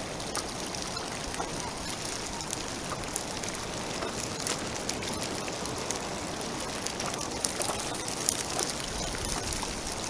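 Choppy sea water lapping and splashing close by, a steady wash with scattered small splashes and droplet ticks.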